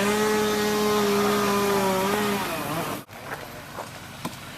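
Chainsaw revved up to full throttle, held steady at a high whine for about two seconds, then let back down. About three seconds in the sound breaks off, leaving quieter background noise with a few clicks.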